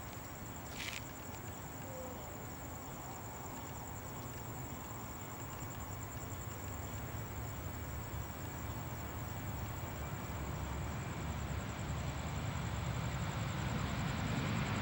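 Crickets or other night insects trilling steadily at a high pitch, over the low rumble of jet airliner engines that grows steadily louder, loudest near the end.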